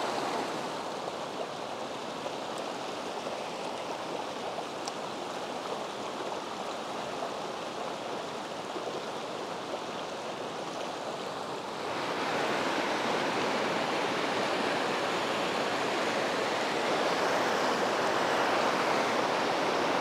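Rushing water of a rocky mountain stream, a steady wash of noise. About twelve seconds in it becomes louder and brighter.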